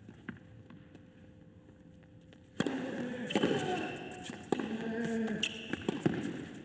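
Tennis rally on an indoor hard court: sharp racket strikes on the ball and shoes squeaking on the court. The play starts suddenly about two and a half seconds in, after a quiet stretch with a few faint ball bounces.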